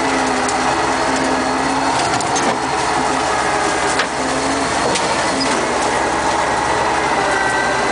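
Kirovets K-700 tractor's V8 diesel running steadily under load, heard from inside the cab, while brush and small trees are crushed and snapped in front of it. Branches crack again and again, with a sharper crack about four seconds in.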